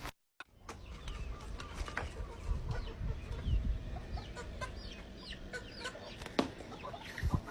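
Birds calling, many short falling chirps and clucks over a low rumbling background, starting after a brief moment of silence.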